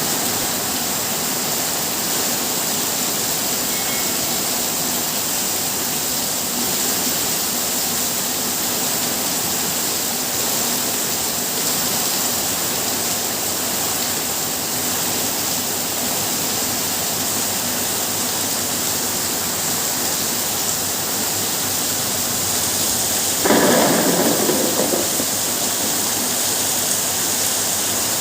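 Steady heavy rain: a continuous even hiss. About five seconds before the end, a sudden louder burst fades away over a second or so.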